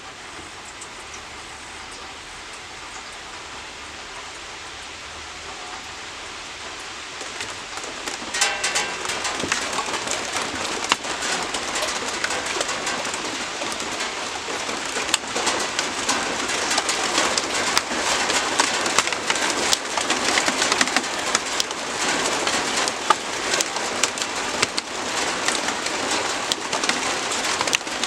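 Rain falling steadily, turning heavier about eight seconds in, with many close drop hits.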